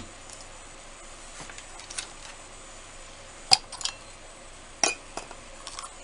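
Small hard craft items clinking and tapping against each other and the tabletop: a handful of scattered sharp clicks, the loudest about three and a half seconds in.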